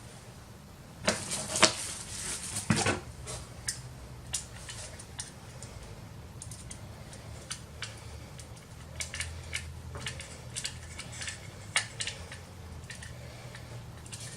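Clicks and light clattering of an SSD being handled and fitted into a drive bracket, with a few louder knocks in the first three seconds, then a scatter of small ticks.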